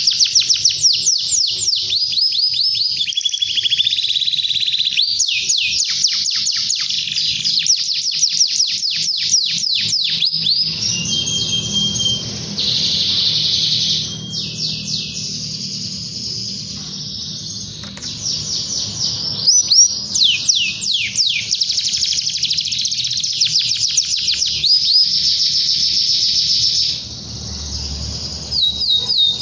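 Domestic canary singing continuously in long rapid trills of repeated falling notes, broken by a few briefly held notes.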